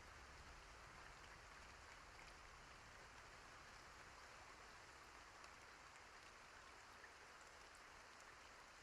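Near silence with a faint, steady bed of rain ambience and a few soft drop ticks.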